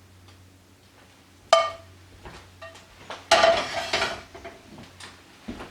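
Cookware clanking: a sharp ringing clink of a metal pan or utensil about a second and a half in, then a louder rattling scrape lasting under a second, with a few light knocks around them.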